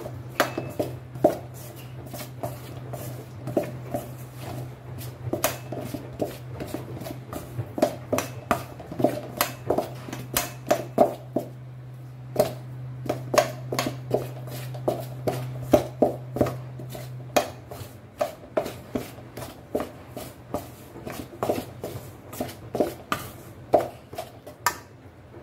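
Metal spoon knocking and scraping against a stainless steel bowl while stirring flour and water into a shaggy naan dough, in quick irregular clinks about two or three a second. A low steady hum runs underneath and stops about two-thirds of the way through.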